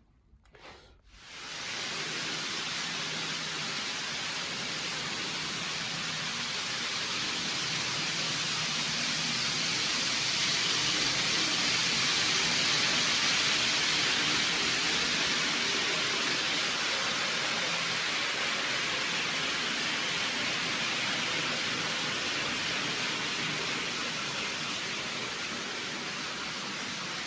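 A steady, even hiss that starts abruptly about a second and a half in and holds without rhythm or pitch.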